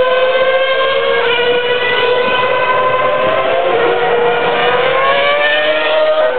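Formula One car engine screaming at high revs through a corner. The pitch jumps with a gear change about a second in, falls slowly as the car slows, then rises again as it accelerates away near the end.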